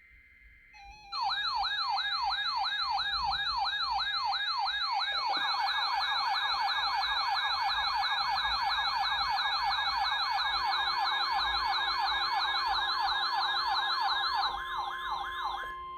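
Electronic siren sweeping rapidly up and down, starting about a second in. The sweeps quicken to a faster yelp about five seconds in and cut off just before the end.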